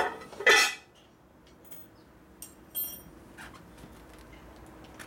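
Metal parts or tools clattering as they are handled and set down: a loud clatter about half a second in, then a few light clicks and a ringing metallic clink about two and a half to three seconds in.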